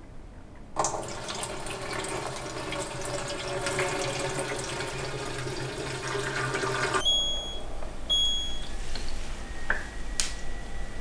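Water poured from a filter jug into a humidifier's tank, splashing and gurgling steadily for about six seconds before stopping abruptly. Then the humidifier beeps twice, short and high, about a second apart as it is switched on, and a faint steady high tone follows.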